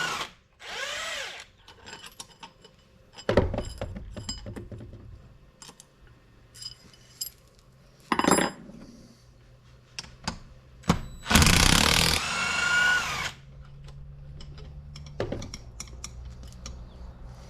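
Power drill/driver with a socket running in short bursts, its motor whine rising as it spins, spinning out the 14 mm cylinder head bolts. Light metal clicks and clinks of the socket and bolts come between the bursts, and the longest run of the tool comes about eleven seconds in.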